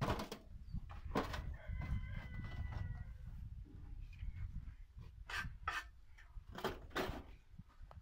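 A rooster crows once, a long call starting about a second and a half in. Around it come sharp knocks of fired bricks being handled, about six of them, the loudest at the start and near the end.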